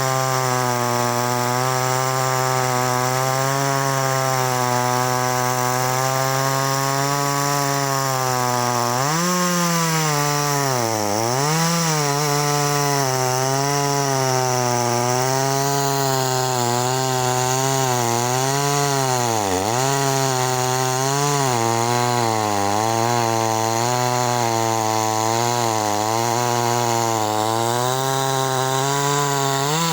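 Two-stroke chainsaw running hard while cutting wood, its engine pitch wavering constantly as the chain meets the wood and dropping sharply twice, about a third and two thirds of the way through, as it bogs under load.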